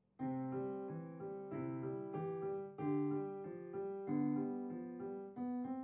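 Background music: a simple melodic tune of piano-like notes that starts a moment in.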